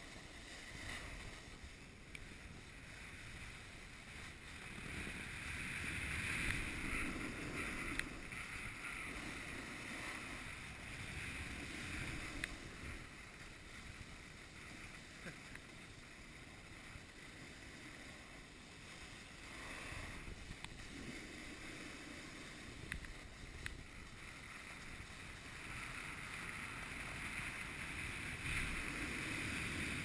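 Steady rushing scrape of sliding on groomed snow while riding downhill, swelling louder several times as the edges bite into turns, with wind noise on the microphone.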